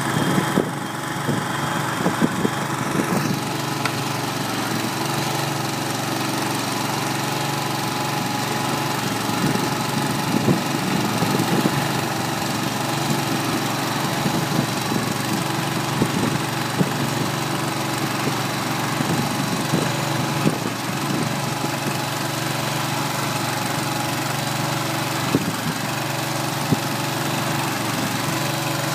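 Kohler 25 hp gas engine running steadily as it drives a small feed mixer tumbling hay, with irregular sharp knocks and ticks from the mixer over the engine.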